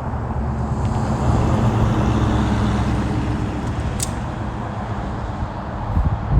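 A motor vehicle's engine rumbling, swelling about a second in and easing off after about four seconds, with one light sharp click near the middle.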